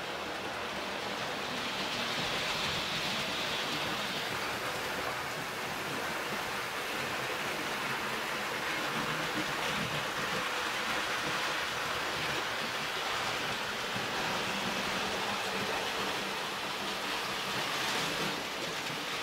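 Hornby model train running on the layout's track: a steady rushing of wheels and motor, louder near the end as the locomotive passes close by.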